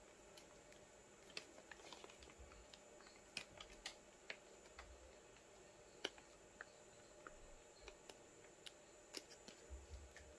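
Faint, scattered small clicks and crinkles of fingers handling a small fabric patch with double-sided tape, picking at its backing at the edge, over a ripstop nylon kite canopy.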